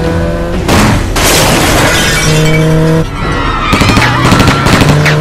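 Background music with held synth notes overlaid by action-film sound effects: a sudden crash with shattering glass about a second in, then a noisy rush and dense crackling with squealing glides near the end.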